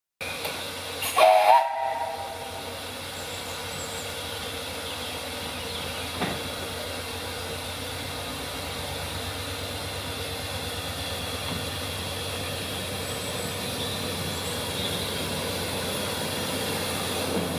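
Bagnall-built narrow-gauge steam locomotive Sea Lion giving a short whistle blast about a second in, then steam hissing steadily as the train sets off, growing a little louder near the end.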